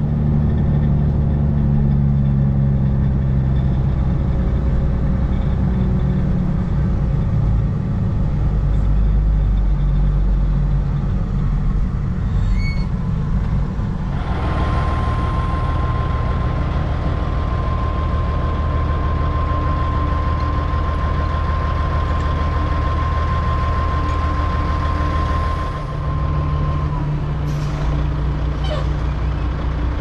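Diesel semi truck pulling a grain hopper trailer, its engine running with a heavy low rumble. In the first half it is heard from inside the cab. From about halfway a steady high whine joins it, and the whine stops a few seconds before the end.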